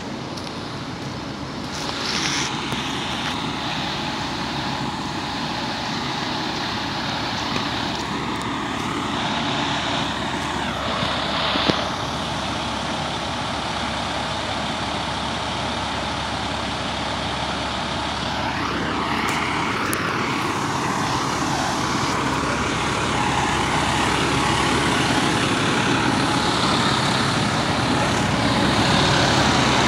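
Diesel engines of parked fire engines idling, a steady low drone that grows gradually louder.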